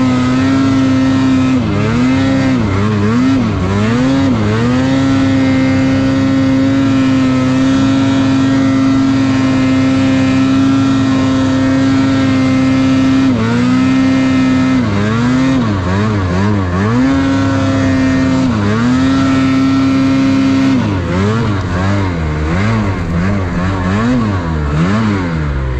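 Snowmobile engine running under load through deep powder, held at a steady pitch for long stretches and revving up and down several times as the throttle is blipped: a few seconds in, about halfway through, and again over the last few seconds.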